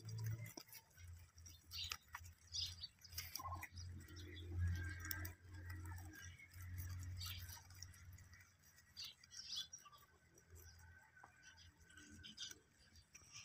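Faint crunching and rustling of many rabbits chewing cut grass, with short bird chirps in the background. A low rumble runs under the first two-thirds and then fades out.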